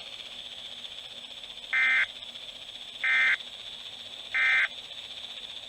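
NOAA Weather Radio SAME end-of-message data burst sent three times: three short, harsh two-tone digital buzzes about 1.3 seconds apart, over steady radio hiss. The bursts mark the end of the broadcast alert.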